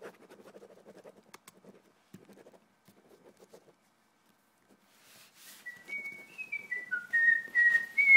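A person whistling a short tune of quick stepped notes, starting about six seconds in.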